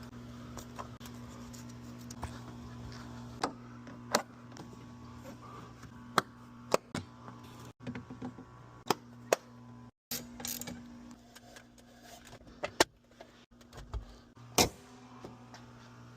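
Windshield-replacement work: a string of separate sharp clicks, knocks and clacks from tools and parts being handled, over a steady low hum. The sound breaks off abruptly a few times, as between short cut-together clips.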